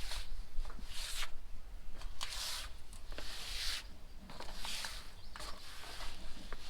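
Short rustling, rubbing swishes, about one a second, as someone climbs: clothing and hands brushing against the structure, over a steady low rumble.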